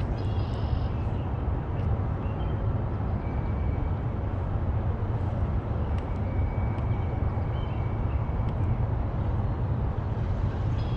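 Steady low outdoor rumble with a few faint, thin high tones.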